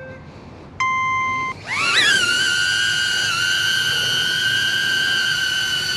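HoverAir X1 mini drone: a short electronic beep about a second in, then its propeller motors spin up with a rising whine and settle into a steady high-pitched hover whine as it takes off.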